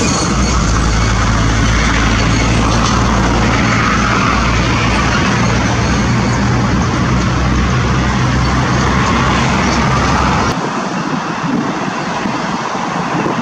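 Steady road-traffic noise with a heavy vehicle's low engine rumble underneath; the rumble cuts off suddenly about ten seconds in.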